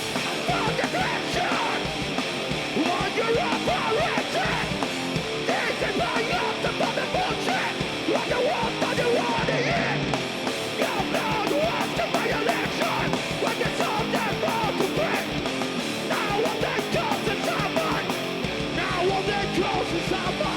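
Heavy rock band playing live and loud: distorted electric guitars and drums with yelled vocals. The drumming hits harder and more evenly from about halfway through.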